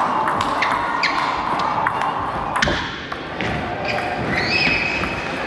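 Table tennis ball being struck by paddles and bouncing on the table during a rally: a quick run of sharp clicks in the first second, another about two and a half seconds in, with the reverberation of a large hall.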